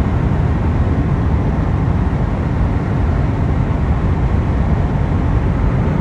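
Steady road and wind noise inside a car's cabin at highway speed.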